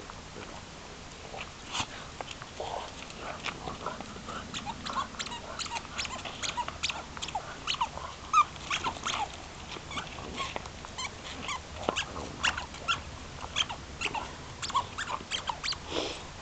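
Dogs at play, play-wrestling, with a busy run of short, sharp sounds and brief high blips throughout.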